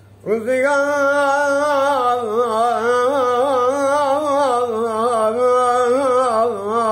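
A man singing sharveh, the southern Iranian folk vocal style, unaccompanied. He holds one long note, sung with quick wavering ornaments that dip and rise. It starts about a third of a second in.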